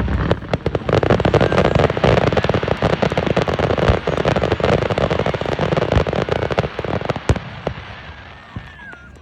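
Fireworks crackling: a dense run of rapid pops for about seven seconds, with a sharper bang near the end before it dies away.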